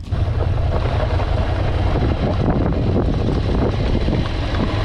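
A Ducati Scrambler Desert Sled motorcycle riding off-road, with wind rushing over the microphone and the engine running underneath. The noise starts abruptly and stays steady and loud.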